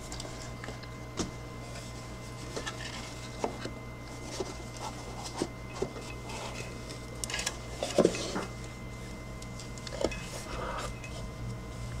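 Gloved hands handling a black cardboard watch box: scattered light taps, knocks and rubs as the box is opened, with one louder knock about eight seconds in. A steady low hum runs underneath.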